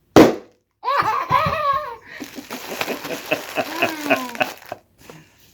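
A large bubble of plastic packing material burst with a single loud, sharp pop, followed by a small child's squeal and then a run of rhythmic giggling laughter that stops near the end.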